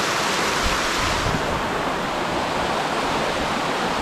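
Steady rush of water from a waterfall close by, a loud even roar; the highest hiss dulls slightly a little over a second in.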